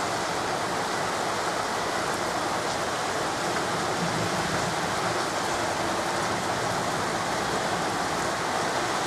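Heavy rain pouring down, a dense, even hiss that stays steady throughout.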